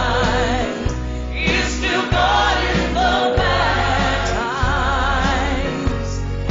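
Gospel music: a choir singing sustained lines with vibrato over a steady low bass, with no clear words.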